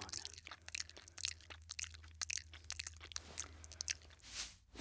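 Faint, irregular little clicks and scratches of a small animal's claws clambering along a ladder: cartoon foley for a fire ferret, with a brief swelling whoosh near the end.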